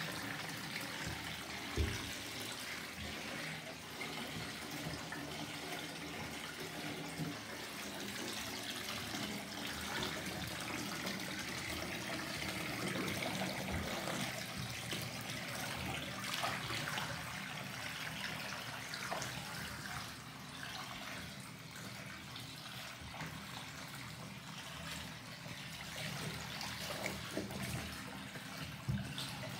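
Water in a bathtub sloshing and splashing around sneaker-clad feet moving in it, as a steady watery rush with small irregular splashes. A short knock sounds about two seconds in.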